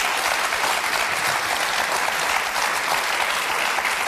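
Studio audience applauding: many hands clapping at once in a steady, even stream.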